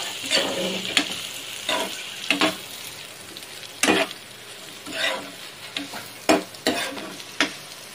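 Sliced onions sizzling in oil in a nonstick frying pan while they are sautéed soft, stirred with a metal spatula that scrapes and knocks against the pan in irregular strokes.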